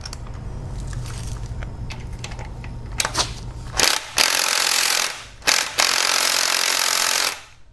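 Impact wrench hammering on the belt idler pulley's bolt: a few short blips, then two longer runs of about one and one and a half seconds, after a steady low hum. The bolt is tight and has not been off for a while.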